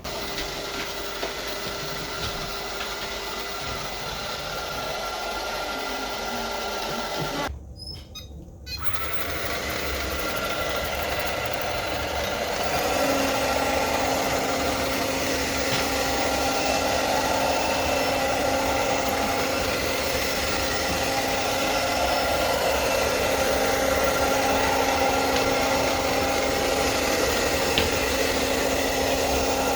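ILife V5s Pro robot vacuum running: a steady mechanical whir of its motor. It cuts out briefly about eight seconds in, then runs on a little louder with a steady hum.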